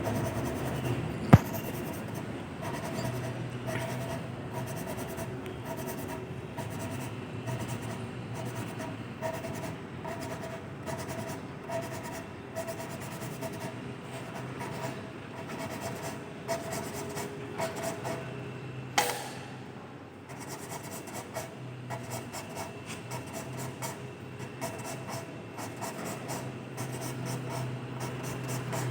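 Rhythmic rasping scrape of an Isuzu 6BG1 engine valve being hand-lapped into its seat, the valve twisted back and forth about one and a half strokes a second. A sharp click about a second in and a louder single scrape about two-thirds of the way through.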